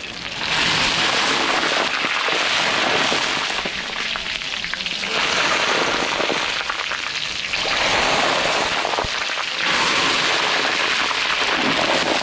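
Hot oil sizzling hard around chunks of pork neck deep-frying in a large wok, a dense hiss that swells and eases in waves. This is the second, final fry that crisps the skin.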